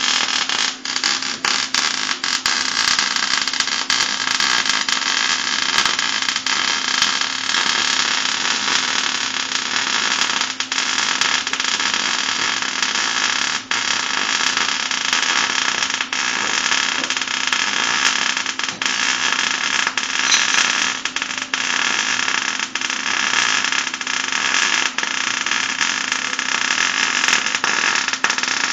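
Electric arc welding: a long continuous bead, with a steady dense crackle and spatter over a faint electrical hum.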